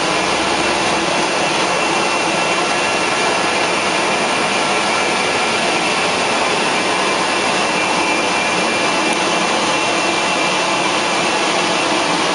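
Carpet extraction machine running during cleaning with a Rotovac 360i rotary tool: a loud, steady rushing suction noise with a faint high whine.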